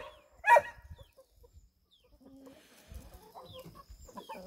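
Hens clucking: one short loud cluck about half a second in, then soft, scattered clucks.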